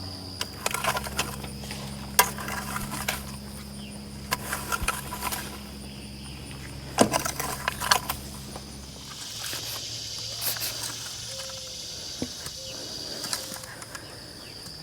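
Takeuchi skid steer's diesel engine idling with a low, steady hum that cuts off about nine seconds in. Scattered metal clinks and knocks fall over it. Insects chirp steadily throughout, with a denser high buzzing coming in after the engine stops.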